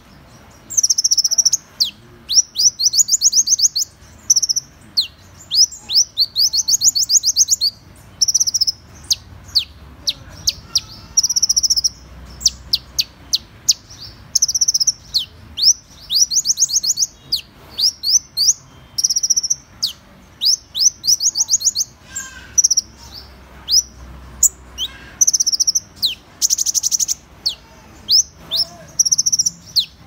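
Van Hasselt's sunbird (purple-throated sunbird) singing: high, thin chirps and fast trills of quickly falling notes, in bursts of about a second with short gaps between them.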